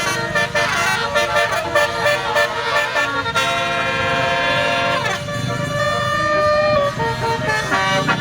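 Bus telolet horn of the Basuri type playing a quick run of short, shifting notes, then a chord held for about two seconds that slides down in pitch and breaks off, followed by more short notes.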